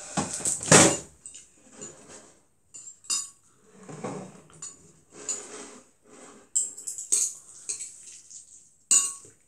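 Metal chopsticks clinking and scraping against a ceramic plate of noodles in a string of short, irregular clinks, with a louder clatter just under a second in.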